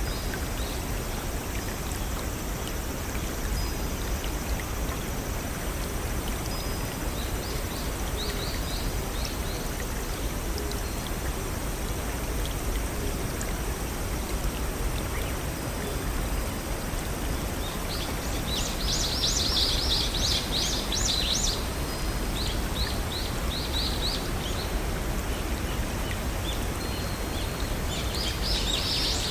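Steady rushing of a small brook or waterfall, with songbirds calling over it in quick high trills of repeated notes. The loudest trill comes about two-thirds of the way through.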